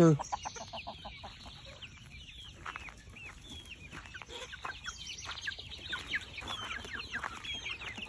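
A flock of chickens clucking, with many short, overlapping calls.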